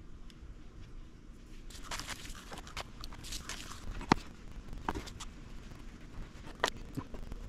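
Close-up handling noises: crinkling and rustling with scattered sharp clicks, as confetti is fed into a dyed pigeon eggshell over a plastic bag of confetti. The rustling starts a little under two seconds in.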